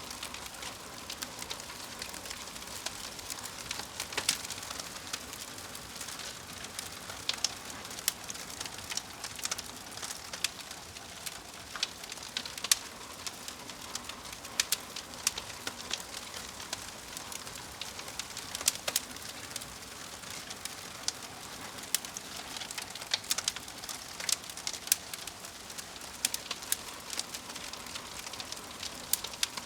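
Wood fire burning, with irregular sharp crackles and pops over a steady soft hiss.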